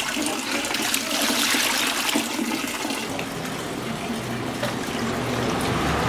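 Water sloshing and splashing in a stainless steel basin as hands rinse a batch of small gutted fish.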